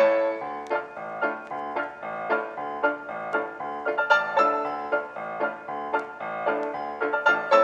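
Background piano music: a light melody of struck notes at a steady pace.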